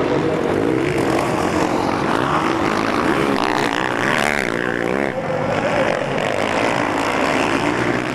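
Motocross bike engines revving hard on the track, the pitch rising and falling with throttle and gear changes, loudest as a bike passes close about halfway through.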